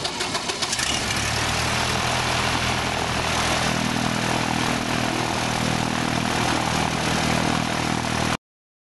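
UL Power 350 four-cylinder, air-cooled aircraft engine running with the propeller turning, just after starting. It settles into a steady idle about a second in, and the sound breaks off abruptly near the end.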